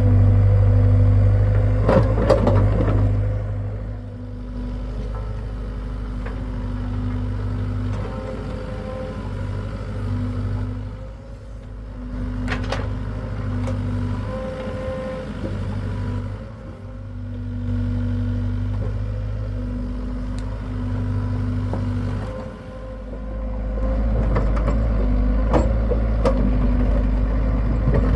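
Hitachi excavator's diesel engine running under varying load, its level rising and falling as the machine works, with a few sharp clanks, one about two seconds in and one near the middle.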